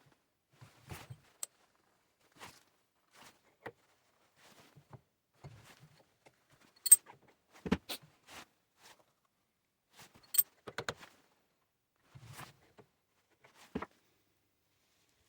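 Irregular clicks, clinks and knocks of hands handling small metal parts. The two sharpest clinks come about seven and ten seconds in, and no machine is running.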